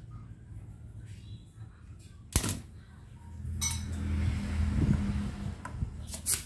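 Spring-loaded desoldering pump snapping as it is cocked and fired to suck solder off a circuit-board joint: one sharp click about two seconds in, another a second later, and a quick cluster of clicks near the end.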